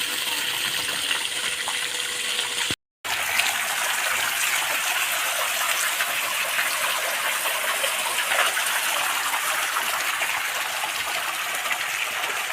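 Water gushing steadily from a water tanker's pipe into a swimming pool, fed by gravity. A faint steady hum runs under it until a sudden brief break to silence about three seconds in, after which the rush of water carries on.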